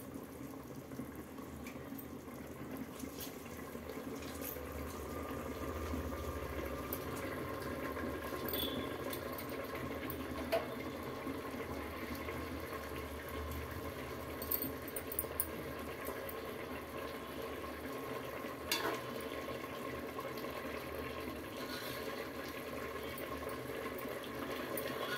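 Chicken masala gravy bubbling steadily at a boil in an aluminium pot, with a few light clicks scattered through.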